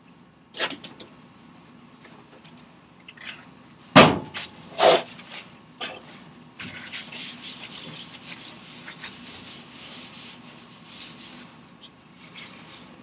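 Paper towels rustling and rubbing across a biosafety cabinet's stainless-steel work surface as it is wiped clean, with a dense stretch of scrubbing in the second half. A few loud knocks come around the middle, over the steady hum of the cabinet's fan.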